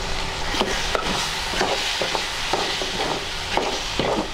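Mushrooms in masala sizzling in a metal kadai while a flat metal spatula stirs them, scraping and knocking against the pan several times.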